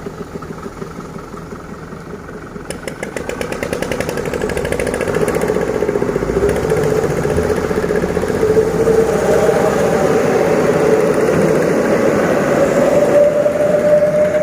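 Heavy diesel engine of sand-loading machinery running, getting louder and higher from about three seconds in and then held at high revs under load.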